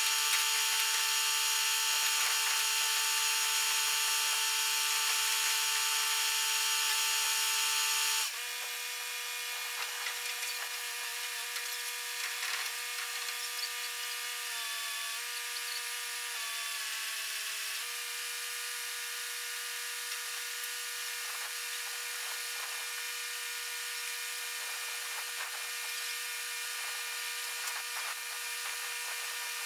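Heavy equipment running with a steady high whine, louder for the first eight seconds and then dropping to a lower level, with a couple of brief dips in pitch a little past the middle as if briefly put under load.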